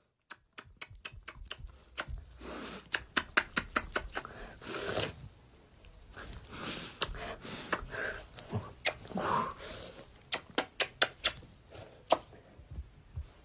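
Repeated kisses: short wet lip smacks, some in quick runs of several a second and others single, with soft pauses between.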